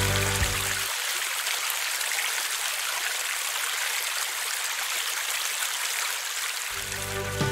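Spring water pouring steadily from a stainless-steel pipe spout and splashing onto leaves and stones below. Background music fades out about a second in and comes back near the end.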